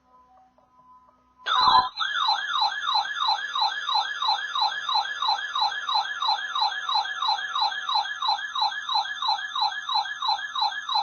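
Weather radio alert alarm sounding for a Severe Thunderstorm Warning: a loud siren-like tone that starts suddenly about a second and a half in and repeats as quick falling sweeps, about three a second.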